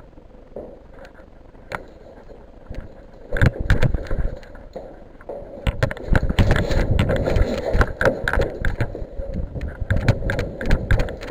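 A dense run of irregular knocks and rattles that starts about three seconds in and grows heavier and continuous from about six seconds on.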